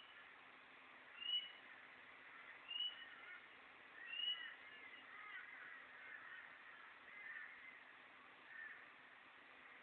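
Wild birds calling, faint and thin-sounding through a poor digital camera's microphone. A short, high, slightly rising note repeats about every one and a half seconds, and a tangle of other warbling calls fills the middle.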